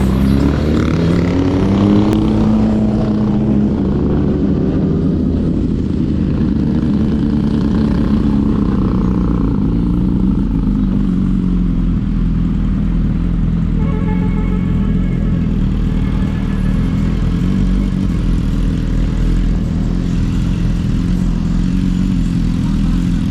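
Superbike engine under way: the revs climb over the first two seconds, then hold fairly steady at cruising speed, with wind rushing over the microphone.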